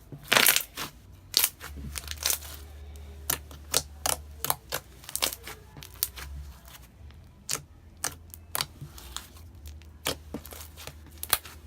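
Clear slime being worked by hand, stretched, folded and squeezed, giving many irregular sharp clicks and pops as the air bubbles trapped in it burst.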